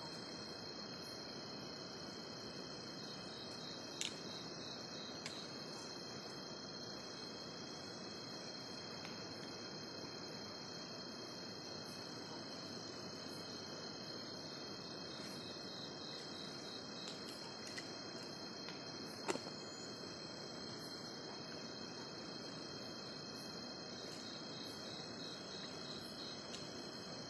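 Steady chorus of night insects: a continuous high buzz with a pulsing trill, over a soft hiss. A couple of sharp clicks stand out, one about 4 s in and a louder one about 19 s in.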